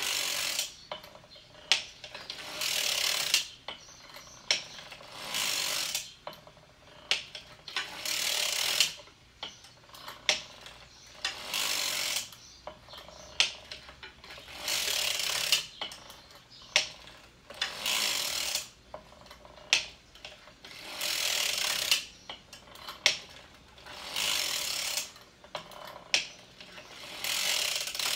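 Hand-cranked circular sock machine knitting round after round: a rasping, ratcheting swish about every three seconds, once per turn of the crank, with a sharp click between the swishes.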